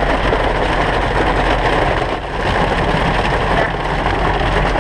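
Heavy monsoon rain and hail drumming on a truck's roof and windshield, heard from inside the cab as a loud, steady, crackling roar.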